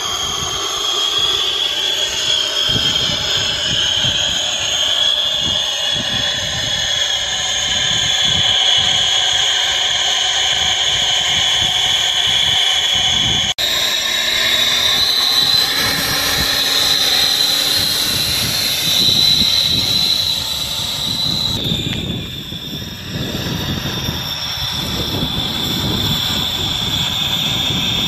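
Radio-controlled model F-15 jet's engines running with a steady high-pitched whine. The pitch steps up slightly about halfway through and dips again later as the model begins to taxi.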